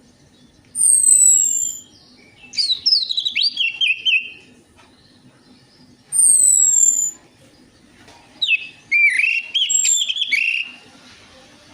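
Orange-headed thrush song, played as a lure to get other birds singing: a high, thin falling whistle given twice, alternating with two longer phrases of varied chirps and warbles.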